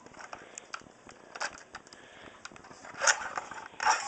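Handling noise from an airsoft shotgun being worked on while its stock screw is unscrewed: small clicks and rattles of plastic and metal parts, with louder rustling scrapes about three seconds in and again near the end.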